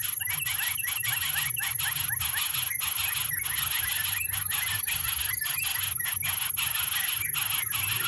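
Dense outdoor chorus of insects and frogs: many short overlapping chirps over a steady hiss, with a constant high-pitched whine.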